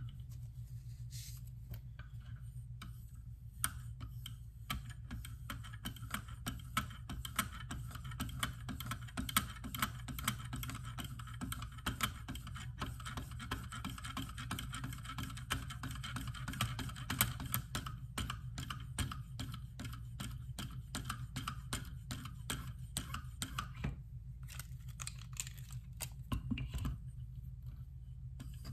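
Rapid back-and-forth strokes of a hone along a knife edge on a KME guided-rod sharpener: a light scraping with many small clicks from the guide rod and hone holder. The strokes start a few seconds in, pause near the end and resume, over a steady low hum.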